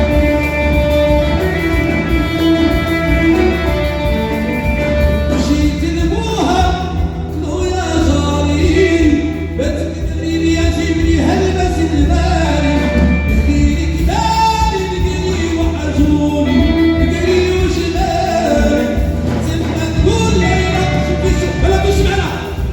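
Live Hassani (Saharan Moroccan) song with a band: sustained instrumental notes over a steady bass, then a singer comes in about five seconds in and sings over the accompaniment.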